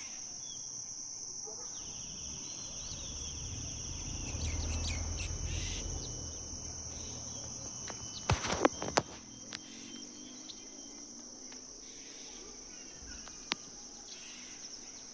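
Insects droning steadily with a constant high-pitched tone, with a quick cluster of sharp knocks about eight seconds in.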